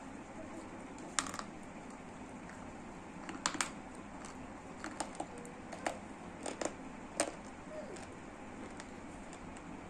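Scattered sharp clicks and small cracks, about ten of them and a few in quick pairs, over a steady background hiss.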